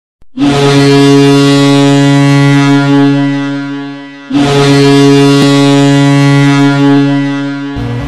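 Boston Bruins goal horn: two long, deep, steady blasts, one after the other, with a short break between them. Goal music begins right at the end.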